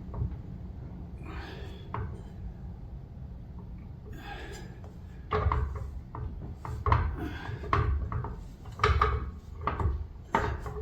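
Handling noise from an outboard motor's lower unit being worked up into the housing: faint rubbing at first, then a run of knocks and clunks from about five seconds in.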